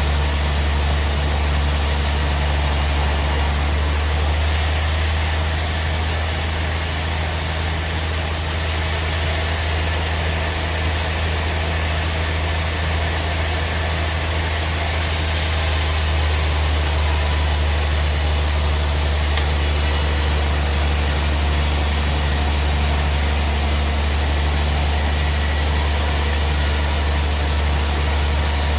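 Band sawmill running steadily: a loud, unbroken low hum with a constant hiss above it.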